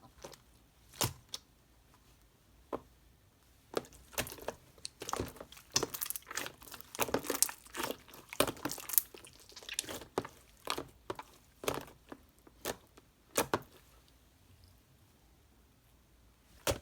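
Irregular crinkling and clicking handling noises, sparse at first, thickest in the middle, then thinning out to a few sharp clicks.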